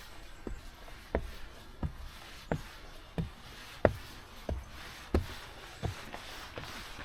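Footsteps of a person walking at a steady pace, about three steps every two seconds, each step a short thud.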